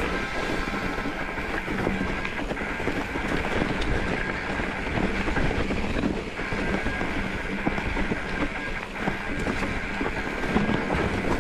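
Steady rumbling noise with wind on the microphone.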